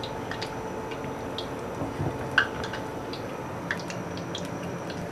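Batter-coated potato chops deep-frying in hot oil: a steady sizzle with scattered small pops and crackles, one louder pop about two and a half seconds in.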